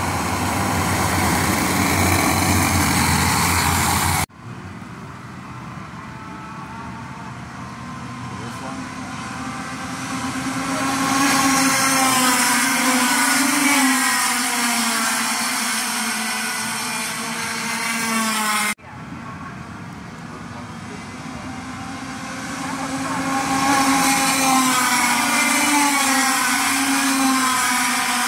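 Racing go-kart engines passing on a street circuit, a high buzzing note whose pitch rises and falls as the karts accelerate and go by. The sound breaks off abruptly twice, about four seconds in and again past the middle.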